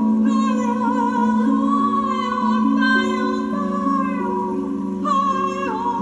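A woman's voice singing a slow, gliding wordless melody over held, stepping instrumental notes from a plucked-string instrument such as a harp: sound-healing music.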